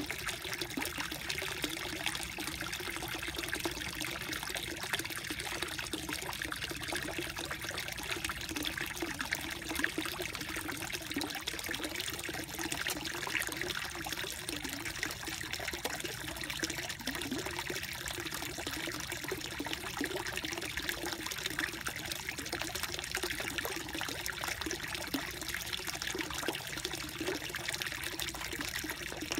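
Water trickling and bubbling steadily in a small koi pond, where water circulates out of a short upright pipe.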